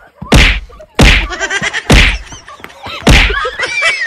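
Four loud whacks, about one a second, with children shouting and laughing between them and squealing after the last one.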